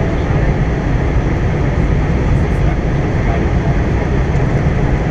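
Steady cabin noise of a jet airliner in flight, heard from inside the cabin: the even hum of the turbofan engines mixed with rushing airflow.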